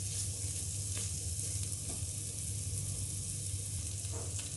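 Paneer cubes frying slowly in a thin film of oil on a flat nonstick pan, a steady soft sizzle over a low hum, with a few faint knocks as a wooden spatula moves the cubes.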